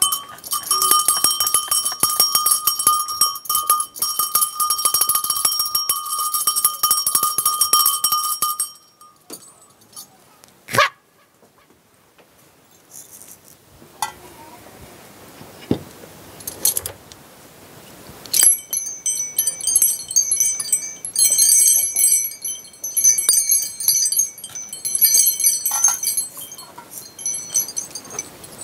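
High, rapidly fluttering tinkling sound effect on several steady high pitches, in two stretches of several seconds. The first lasts about eight seconds and the second starts about halfway through, with a sharp click between them.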